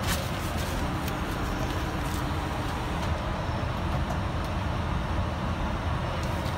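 Steady rushing noise of an Embraer 190 airliner in flight, heard from inside its lavatory, with a few faint clicks of paper being handled.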